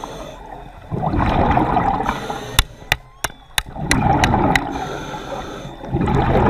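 Water gurgling and sloshing in swells that come and go every two to three seconds, with a few sharp clicks near the middle.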